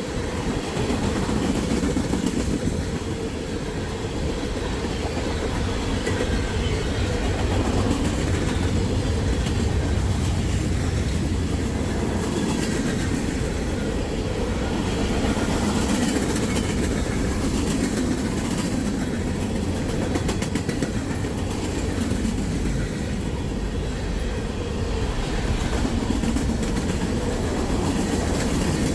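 Freight train cars, tank cars among them, rolling past at steady speed: a continuous rumble of steel wheels on rail with rapid clicking over the rail joints.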